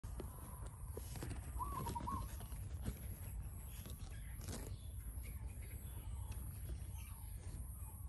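A short warbling whistle about a second and a half in, over a steady low rumble, with a few soft clicks and a brief rustle.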